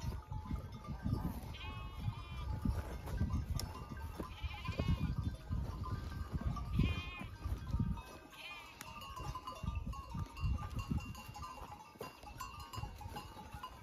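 Goats bleating on the hillside, four short wavering calls about two to three seconds apart, over low thumps and rustle.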